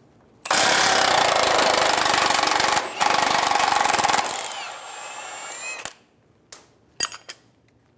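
Impact wrench with a 19 mm socket running in two loud bursts with a short break between, spinning a control-arm bolt loose, then winding down with a fading whine. A few sharp metal clinks follow near the end.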